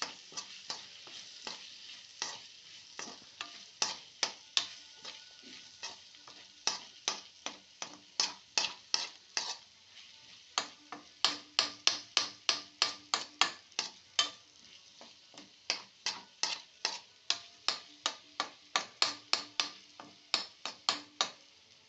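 A cooking utensil repeatedly knocking against the pan while mashing cooked potato masala into a soft paste. The knocks come sparsely at first, then quicken to about two or three a second, over a faint sizzle from the pan.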